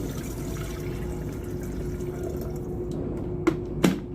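Water being poured into an electric kettle, a steady filling splash, with two sharp knocks near the end.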